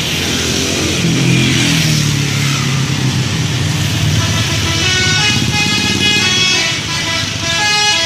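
A bus engine runs loudly, then from about halfway through the bus's telolet horn, a multi-tone musical horn, plays a stepped tune of short notes.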